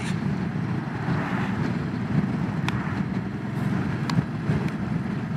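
Motorcycle engine and riding wind heard on board while underway, a steady drone with a couple of faint clicks.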